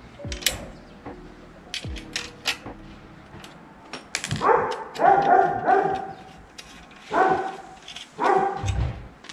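A dog barking in a run of five short, loud barks starting about four seconds in, after a few light clicks and taps of small parts being handled.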